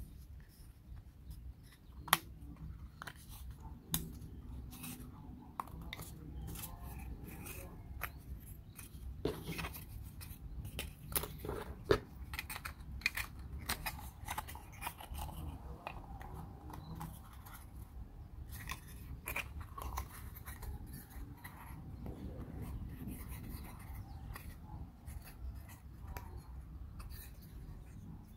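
Thin wooden puzzle pieces being handled and fitted together: irregular light clicks and taps of wood on wood, with a few sharper knocks.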